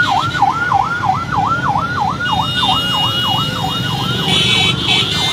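Vehicle siren in a fast yelp, its pitch sweeping up and down about three to four times a second, over the rumble of slow motorbike and car traffic.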